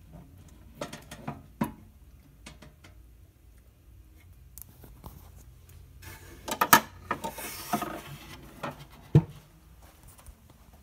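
Handling noises from a wooden Edison Diamond Disc phonograph cabinet as its lid is lowered: scattered clicks and knocks, a stretch of rubbing with sharp knocks around the middle, and one sharp thump about nine seconds in.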